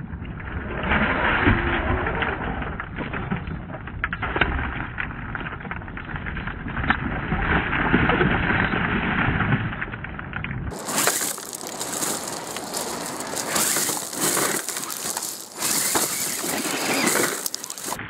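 Traxxas TRX-4 RC rock crawler driving over beach pebbles and a driftwood log: stones crunching and knocking under its tyres. About ten seconds in, the sound cuts to a brighter, hissier recording of the same crunching.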